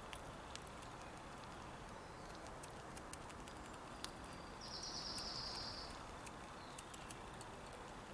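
A small bird's rapid trill, a little over a second long, about five seconds in, with a few faint short chirps before and after. Scattered small sharp clicks throughout, from a fox squirrel gnawing at seeds on the feeder.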